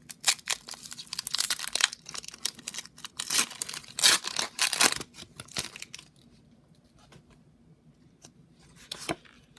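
Foil wrapper of a Pokémon trading card booster pack being torn open by hand: a run of sharp crackling rips and crinkles for about six seconds, then quiet apart from a couple of brief rustles near the end.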